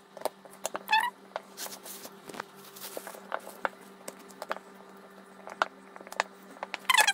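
Light taps and clicks of a rolling pin and hands working dough on a silicone baking mat, over a steady low hum. Short, high chirping calls from an animal come about a second in and again at the very end, and these are the loudest sounds.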